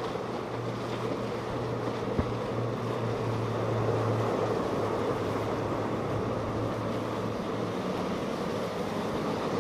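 Outboard engines of center-console boats running at speed through an inlet, a steady drone over rushing water and wake. The drone fades about three-quarters of the way through.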